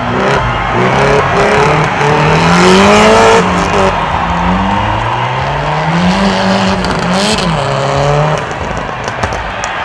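Rally car engine revving hard, its note climbing and then dropping suddenly several times as it accelerates along a dirt stage.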